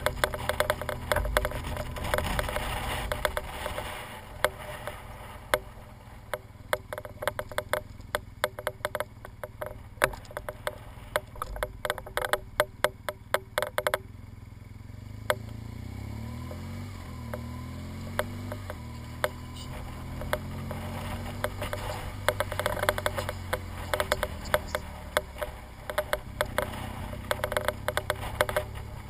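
BMW R1200GS boxer-twin engine running on the move, its note rising and falling with the revs in the second half, under many sharp clicks and rattles that are thickest in the first half.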